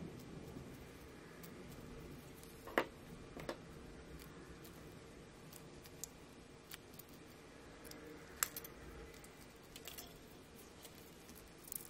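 Scattered small, sharp clicks and light ticks from a watch mainspring and its barrel being handled between nitrile-gloved fingers, over a faint steady hiss. The loudest click comes about three seconds in and another at about eight and a half seconds.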